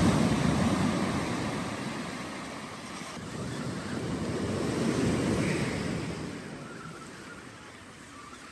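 Small ocean waves breaking and washing up the beach. The sound swells twice, loudest at the start and again about five seconds in, and fades toward the end.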